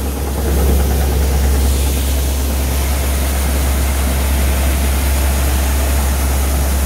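Grain-cleaning and seed-sizing machine running steadily: a deep motor hum under the rushing hiss of its fan's air stream, with wheat seed falling through the separation column.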